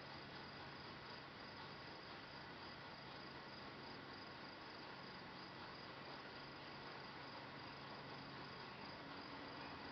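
Faint, steady background with insects chirring over a low hiss.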